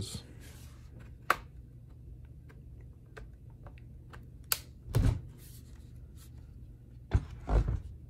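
Plastic retaining clips of a laptop's base cover snapping loose as the cover is pried free around its edges: a sharp click about a second in and another at about four and a half seconds, then a low thump near five seconds and two more near the end as the laptop is handled.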